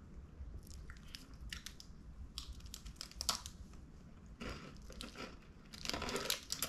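Foil wrapper crinkling while a Cadbury Crunchie chocolate bar is bitten and chewed, its honeycomb crunching in scattered bursts, thickest about three and six seconds in.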